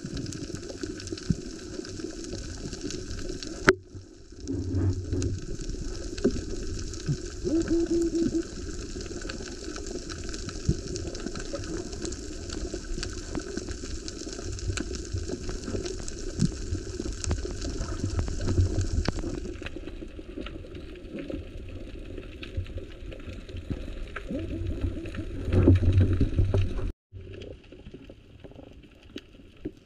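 Underwater sound picked up by a camera carried by a swimmer: a steady rushing, bubbling water noise with a low rumble and small scattered clicks. It breaks off abruptly about four seconds in and again near the end, where it comes back quieter.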